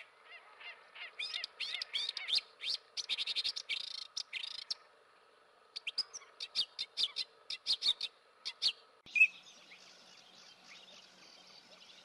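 Small birds chirping in quick bouts of short, high notes, with a brief lull about five seconds in. From about nine seconds only a faint, steady hiss remains, with a few scattered chirps.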